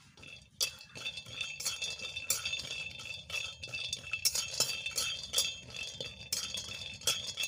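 Metal spatula scraping and clinking against a metal kadai, stirring cashews as they dry-roast. The strokes come irregularly, about one or two a second.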